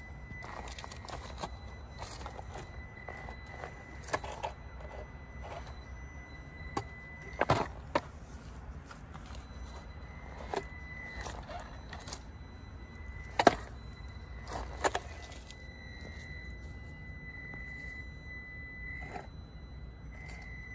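Traxxas TRX-4M micro RC crawler driving over rocks: a faint, steady electric motor whine with scattered knocks and clacks as the tires and chassis bump against the stones, the loudest a little past halfway.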